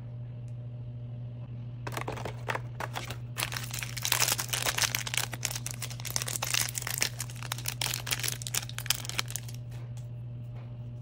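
Shiny foil blind-bag wrapper crinkling as it is torn open and peeled off a small plastic figure by hand, starting about two seconds in and stopping near the end.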